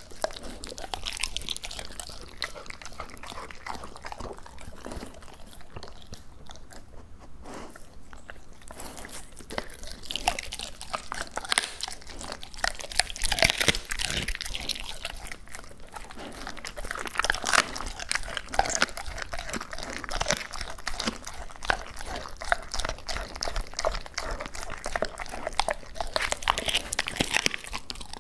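Labrador retriever chewing and crunching raw duck, a dense run of irregular crunches, cracks and wet smacks at close range. The crunching eases briefly about a quarter of the way in, then comes thicker and louder for the rest.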